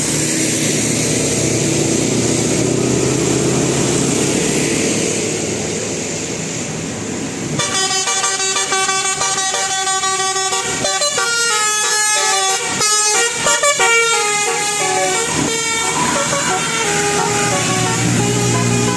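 Bus engine and road noise, then about seven seconds in a bus's 'telolet basuri' musical air horn plays a quick tune of stepping notes for about eight seconds, with brief breaks between phrases, before the engine noise returns.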